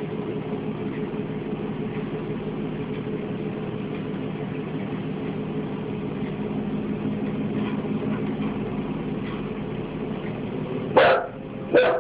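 A dog barking twice, short and sharp, near the end, over a low steady drone.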